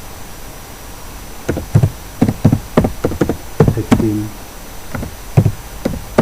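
Computer keyboard typing: an irregular run of sharp key clicks starting about a second and a half in.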